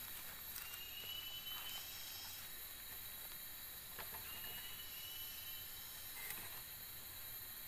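Faint forest ambience: a steady high hiss of insects and a bird's long, thin whistle, sliding up slightly and then held, heard twice. A few light knocks of bamboo poles being handled, one about four seconds in.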